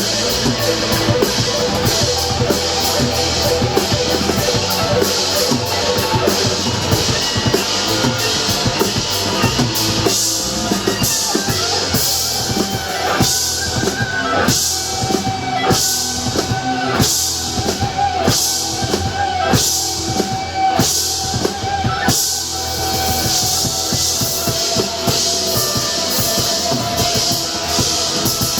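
Live rock band playing, led by a drum kit with electric guitar. Through the middle stretch, cymbal hits fall about once a second over held guitar notes.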